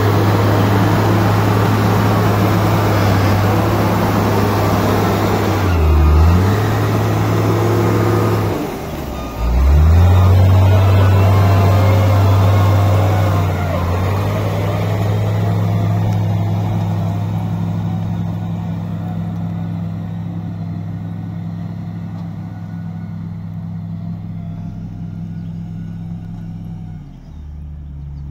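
Wheel loader's diesel engine running close by. Its speed drops briefly about six seconds in and again just before nine seconds, comes back up, then fades steadily as the loader moves away.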